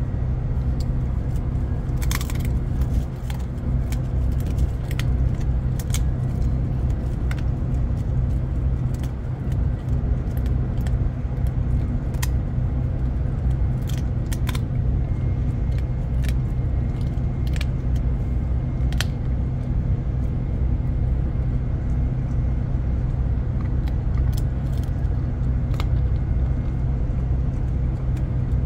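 A dog crunching a hard treat, sharp crunches coming at irregular intervals, over a steady low machinery hum aboard a ship.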